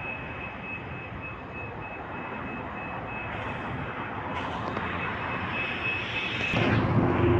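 Bus terminal traffic noise with a thin high tone that comes and goes. Near the end, a diesel city bus engine comes close and gets much louder.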